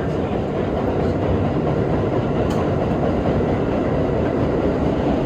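R32 subway train running at speed, heard from inside the car: a steady noise of wheels on rail and traction motors, with a few faint clicks from the track.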